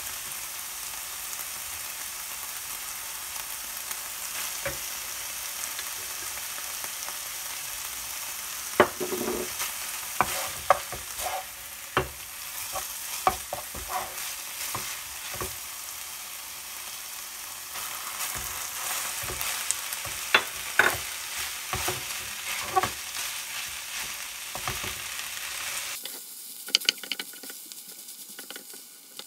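Chopped kimchi sizzling in a nonstick frying pan while a wooden spatula stirs it, knocking and scraping against the pan in clusters from about nine seconds in. The sizzle drops away near the end while the stirring knocks go on.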